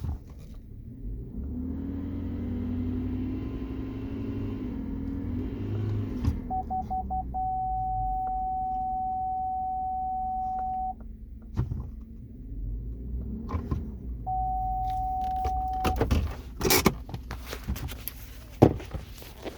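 A 2016 Chevy Silverado rolling with a low wavering whine from underneath over engine rumble for the first few seconds. Then an electronic warning tone beeps a few quick times and holds steady for a few seconds, sounds again briefly later, and a few sharp clicks and knocks come near the end.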